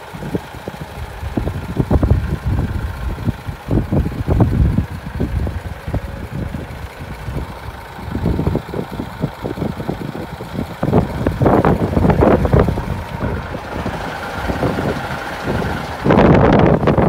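Hino Profia truck's diesel engine idling steadily, with gusts of wind buffeting the microphone. About a second before the end, a loud rush of wind noise takes over.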